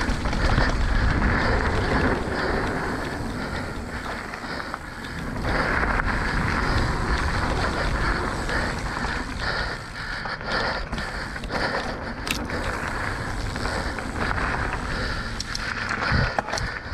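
Mountain bike riding fast down a dirt trail: tyres rolling over dirt and the bike rattling over bumps, under steady wind rush on the microphone. A few sharper knocks come from the bike hitting bumps, one louder thump near the end.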